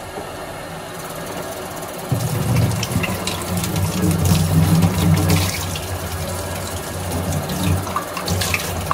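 Kitchen tap running into the sink while a mate gourd is rinsed out. The flow gets louder about two seconds in, with splashing and small knocks.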